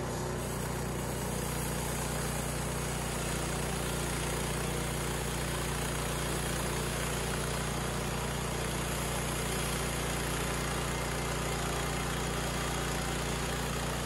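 Harbor Freight portable bandsaw mill's gasoline engine running steadily while its band blade is pushed along through a log, cutting a slab.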